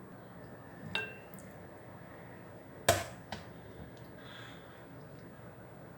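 A metal kitchen utensil clinking and knocking against cookware: a light clink with a short ring about a second in, a sharper knock near three seconds, then a small tap.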